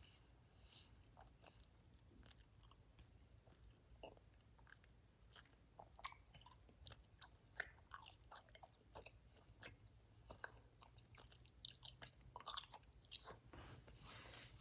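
Faint close-up chewing of Sour Patch Kids gummy candies soaked in milk: small wet mouth clicks and smacks, sparse at first and much busier from about six seconds in.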